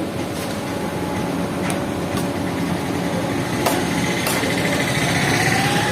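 Steady engine rumble of passing street traffic, with about five sharp clicks or knocks scattered through it and a faint high tone coming in near the end.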